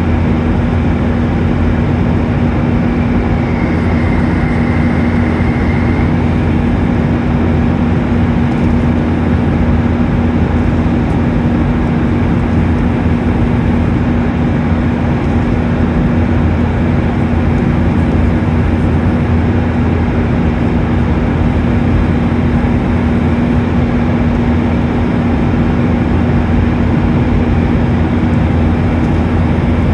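Boeing 737-800 in flight heard from inside the cabin at a window seat over the wing: a steady, unchanging rush of engine noise and airflow with a constant low hum running under it.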